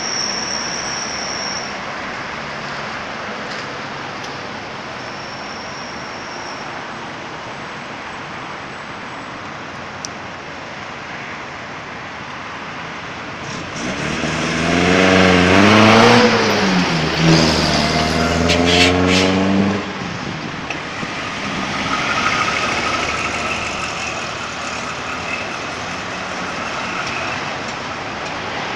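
Road traffic running steadily. About halfway through, a motor vehicle passes close by, its engine note rising and then falling and much louder for several seconds, with a few sharp clicks near its end.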